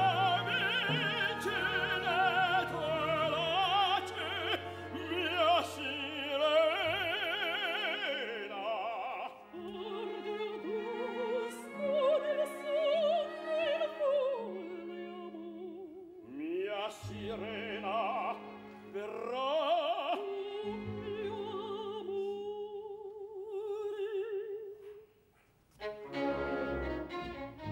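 Soprano and tenor singing an operatic duet together with full vibrato over an orchestra. The voices end shortly before the last few seconds, there is a brief near-silent pause, and then the orchestra's strings start again.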